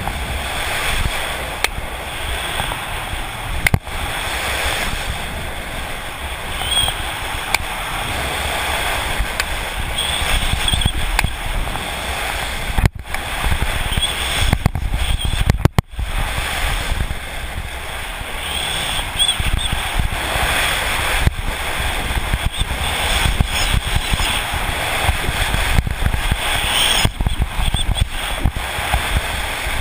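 Wind rushing over a GoPro camera's microphone on a fast downhill ski run, with a low buffeting rumble, the hiss and scrape of alpine skis on hard-packed snow, and scattered sharp clicks. The noise briefly cuts out twice around the middle.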